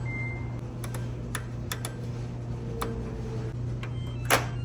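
Buttons on a front-load washing machine's control panel being pressed: a series of sharp clicks with a few short electronic beeps, the loudest click near the end as Start/Pause is pressed, over a steady low hum.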